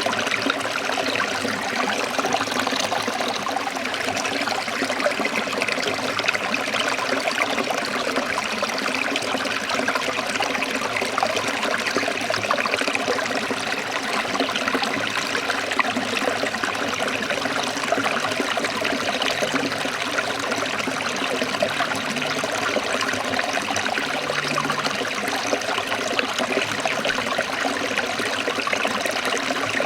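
Forest stream running over rocks: a steady trickling and splashing of water.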